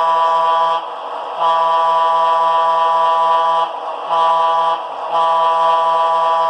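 Leslie A220 locomotive air-horn sound from a Soundtraxx Tsunami sound decoder, played through a model locomotive's small speaker. It sounds a chord of several steady tones in the grade-crossing pattern: the end of a long blast, another long blast, a short one, then a long one.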